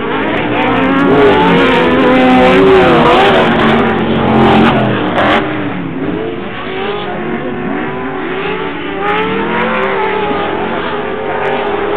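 Engines of several off-road race trucks and buggies revving up and down as they pass, several pitches rising and falling at once. Loudest in the first half, easing off a little after about six seconds.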